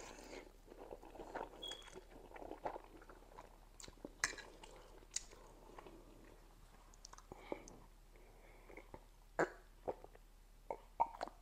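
Close-miked mouth sounds of a person eating spicy instant noodles: a slurp, then chewing with wet lip smacks and clicks, and gulps of water near the end.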